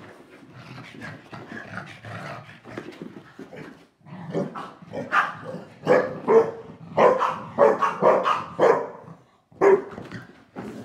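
A Shar Pei and a Boston Terrier play-fighting: low growling at first, then from about four seconds in a quick run of short, loud barks, with one more bark near the end.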